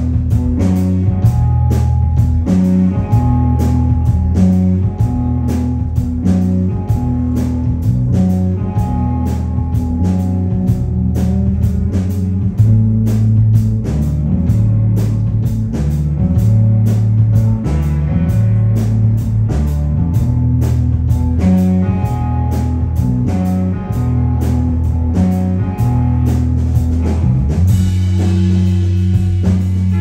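Live rock band playing an instrumental passage: electric guitars over a drum kit's steady beat, with a strong low note line underneath. Near the end the drum hits stop and the guitars ring on.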